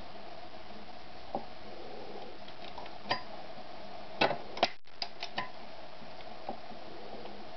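Scattered light clicks and taps of the stopped sewing machine and its work being handled, over a faint steady hum, with a cluster of clicks a little past the middle.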